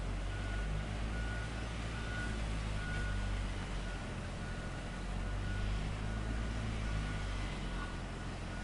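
A heavy machine's engine running steadily, with a backup alarm beeping in short, even beeps about every two-thirds of a second.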